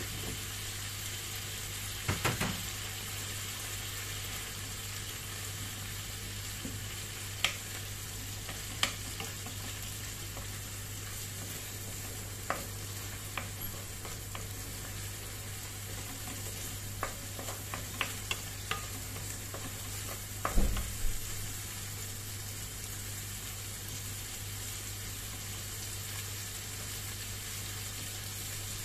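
Corned beef and onions sizzling in a nonstick frying pan while a wooden spatula stirs and scrapes, with scattered knocks of the spatula against the pan, the loudest about two-thirds of the way in. A steady low hum runs underneath.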